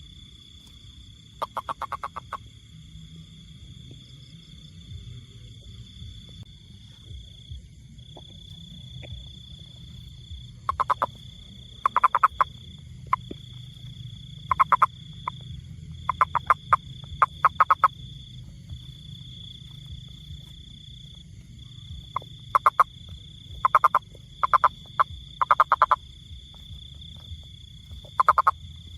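Frog calling in short bursts of rapid pulses, each burst about half a second long, repeated irregularly every second or few with longer pauses between groups. A steady high tone and a low rumble run beneath.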